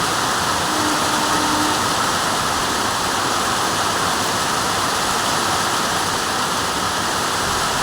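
Heavy rain falling, a steady even hiss with no let-up. A faint short tone sounds briefly about a second in.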